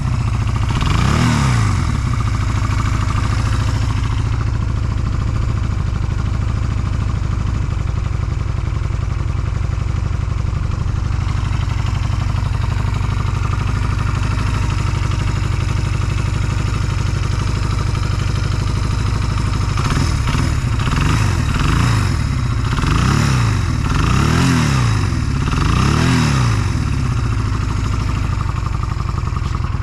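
Honda Rebel 250 (MC13) motorcycle's air-cooled parallel-twin engine idling, with a quick throttle blip about a second in and a run of about five blips from about twenty seconds in before settling back to idle. It revs up cleanly with no abnormal noise, by the seller's account.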